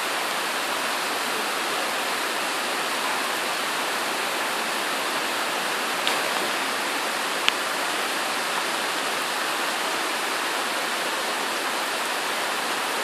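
Heavy rain pouring down in a steady, even hiss. Two brief sharp ticks cut through it about halfway through.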